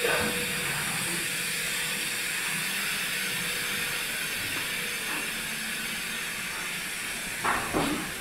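Steady hiss and hum of plastic injection-moulding machines running on a factory floor, with two short faint sounds near the end.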